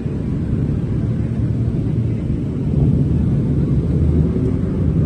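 Motorcycle engines idling, a steady low rumble with no revving.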